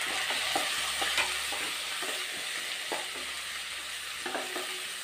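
Chopped ginger, garlic and chili sizzling steadily in hot ghee and dalda in a nonstick kadai. A spatula stirring them gives short, irregular clicks and scrapes against the pan.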